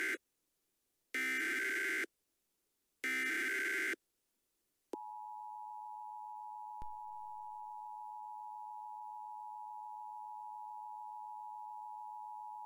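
Emergency Alert System tones: the last two SAME digital header bursts, harsh screeching data blasts about a second long each with a second's gap between them. About five seconds in, the steady two-tone EAS attention signal (853 and 960 Hz) starts and holds.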